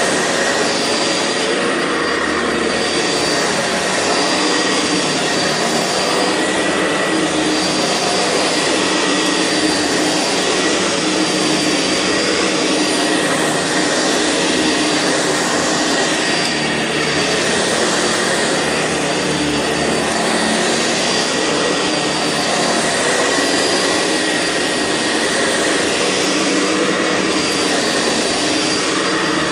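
Sanitaire SC679 commercial upright vacuum running on carpet. Its motor gives a steady high whine, and the rushing hiss swells and eases every few seconds.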